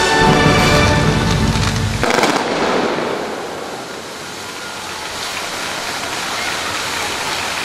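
Show music ending on a final chord about two seconds in, then an even crackling hiss of distant crowd applause.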